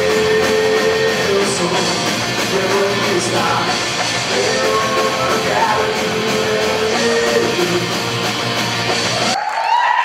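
A rock band plays live: electric guitars, bass guitar and drums under a singer holding long notes. The music cuts off abruptly near the end.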